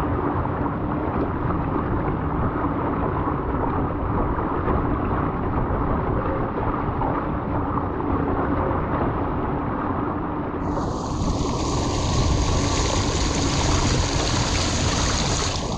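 Water rushing past a sailing Moth dinghy with wind buffeting the microphone, and a faint steady hum under it. About ten seconds in, a strong high hiss of spray comes in and cuts off suddenly near the end.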